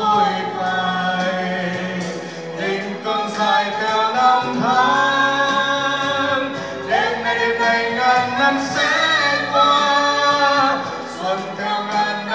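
A man and a woman singing a duet through handheld microphones, over backing music with a steady beat.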